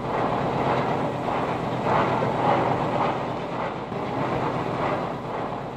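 A steady rushing, rumbling noise like running machinery, swelling a little around the middle and easing off toward the end.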